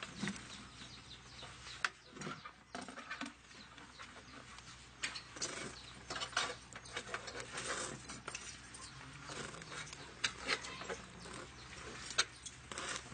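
Scattered knocks, clicks and rustling as a plastic knapsack sprayer is picked up and slung onto a man's back, with footsteps as he walks off.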